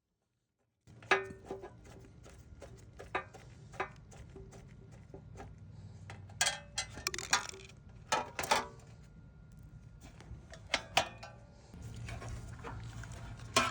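Irregular clicks, taps and clatter of small hard parts being handled, starting about a second in, with several louder knocks in the middle.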